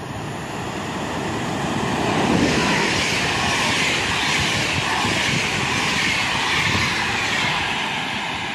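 Passenger train hauled by an EU44 (Siemens Taurus) electric locomotive passing through at speed: a rising rush of wheel and air noise that is loudest from about two seconds in as the locomotive and carriages go by, then begins to fade near the end.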